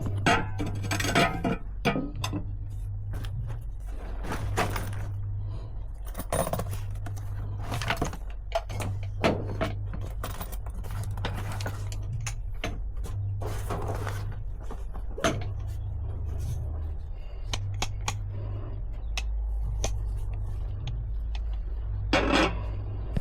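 Metal parts and tools clinking, knocking and scraping as they are handled on a work surface, many short separate strikes, over a steady low hum.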